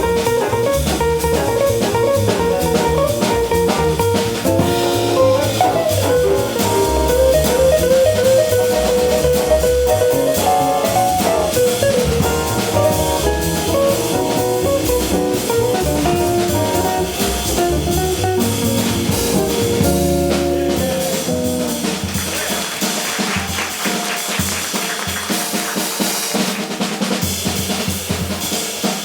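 Live small-group jazz: a melody line over walking bass and drum kit. About three-quarters of the way through, the bass and melody drop out and the drum kit carries on alone with snare and cymbals, as at the start of a drum solo.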